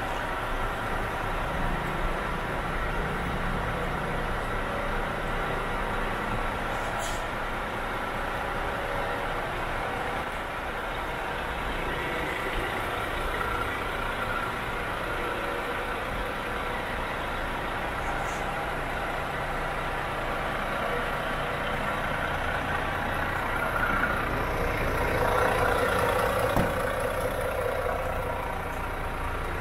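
Iveco Stralis 450 tractor unit's diesel engine idling steadily, a little louder near the end.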